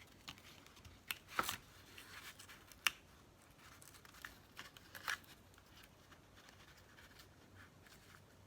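Paper and cardstock being handled: faint rustling with a few short, sharp taps and clicks, the sharpest about three seconds in.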